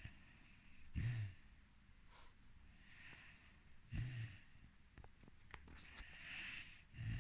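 A four-month-old Rhodesian Ridgeback puppy snoring: three low snores, one about every three seconds, with a soft airy breath between them.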